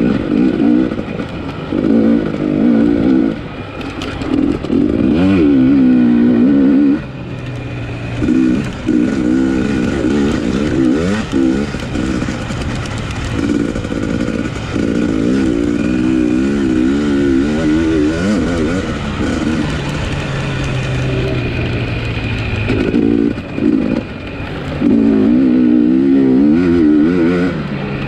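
Motocross bike engine revving hard and backing off again and again as it is ridden around the track, its pitch rising and falling, with a few brief drops in level where the throttle closes.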